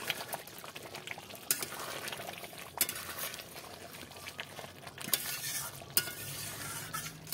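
A metal spatula stirring a steel kadai of boiling spinach gravy, with a steady bubbling wash and a few sharp clinks of metal on the pan.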